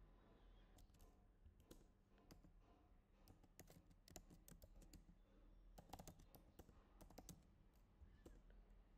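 Faint typing on a computer keyboard: irregular key clicks throughout, coming thickest around the middle of the stretch.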